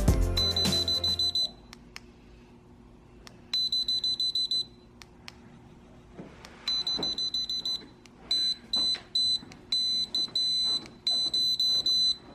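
Wireless call-button system giving electronic alert beeps: several bursts of high-pitched beeping about a second long. Rapid pulsed beeps come first, then three longer beeps and a steady tone, with faint clicks between them, as the alert sounds are set. Background music fades out at the start.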